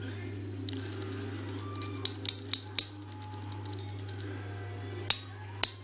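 Sharp metallic clicks from the small parts of a pin-tumbler lock cylinder being taken out: four in quick succession about two seconds in, then two more near the end.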